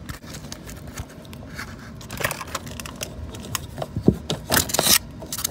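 14-gauge electrical wire being fished through a tight chase behind an RV furnace: irregular scraping, crinkling and rustling with a few sharp clicks. The loudest rustle comes about four and a half seconds in.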